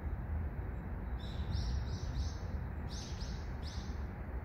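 A small bird chirping in the background: a run of about four short high calls, then about three more, over a steady low outdoor rumble.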